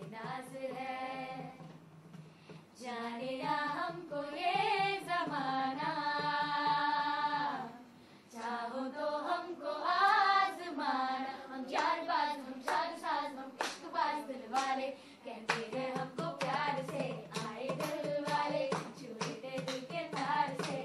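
Children singing a melody together, unaccompanied, with long held notes. From about halfway through, sharp hand claps join in at about two a second.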